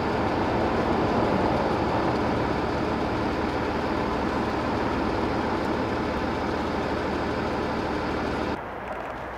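A vehicle engine idling steadily. Near the end the sound drops away abruptly to a quieter background hum.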